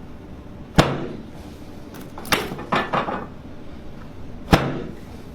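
Two sharp thumps from a chiropractic treatment table during an adjustment, about four seconds apart, each with a short low ring, and a few lighter clicks in between.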